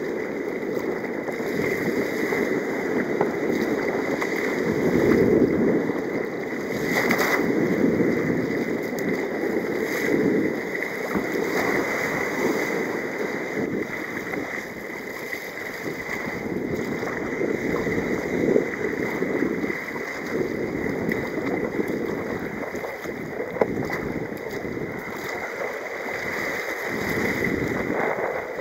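Sea kayak in rough, breaking waves: water rushing and sloshing around the hull in surges, with wind on the microphone.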